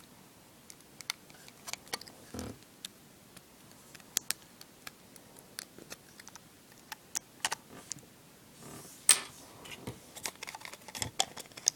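Irregular small clicks and taps of hard plastic and metal as iPod parts and a small screwdriver are handled close up, with one louder scraping click about nine seconds in.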